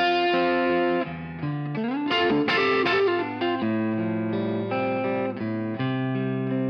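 Guitar-led background music, with a few notes sliding upward about a second and a half in.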